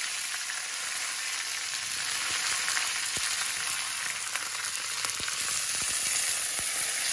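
Food frying in a pan, a steady sizzle with a few faint pops.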